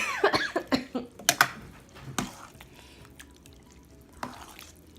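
Food being stirred and mixed in a bowl with a utensil as fish sauce is worked in: quick clicks and scrapes through the first second and a half, then single clicks near two seconds and just after four seconds.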